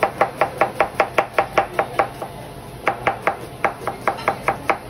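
Knife chopping rapidly on a cutting board, about five strokes a second. It pauses briefly about two seconds in, then resumes.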